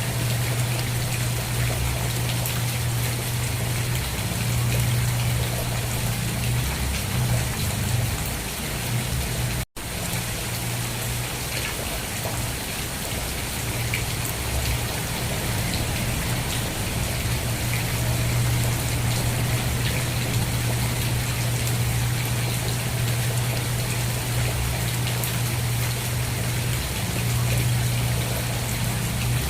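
Steady rain falling, an even hiss of drops with a constant low rumble underneath. The sound drops out for an instant about ten seconds in.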